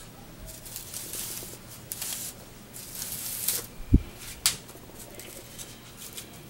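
Paper rustling and crinkling as hands handle and press the paper strips of a paper decoration, with a soft thump about four seconds in and a sharp click just after.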